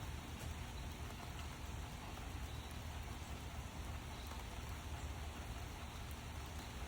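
Steady rain falling and pattering, an even hiss with a low rumble on the microphone.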